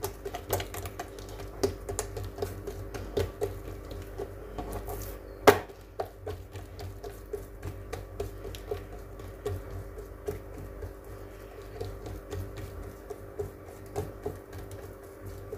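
Hands patting and pressing oiled dough thin against a glazed clay bowl: soft, irregular pats and dabs, with one sharper knock about five and a half seconds in, over quiet background music.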